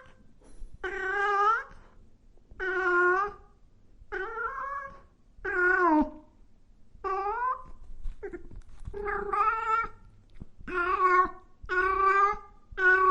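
A cat meowing repeatedly: about nine separate meows, each under a second long and some falling in pitch at the end, coming roughly every one and a half seconds.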